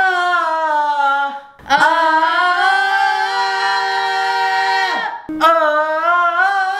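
A teenage boy singing long, high held notes without accompaniment, as in a vocal warm-up. One note ends about a second and a half in, the next is held for about three seconds, and a third starts just after five seconds.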